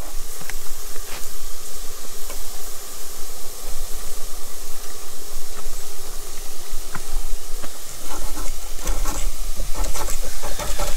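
Korean-style beef short ribs sizzling steadily on a hot PK GO charcoal grill, with a few light clicks and knocks near the end.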